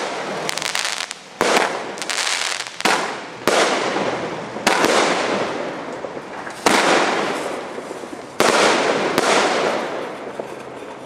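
Aerial fireworks exploding in the sky: about eight sharp bangs at uneven intervals, each trailing off over a second or two.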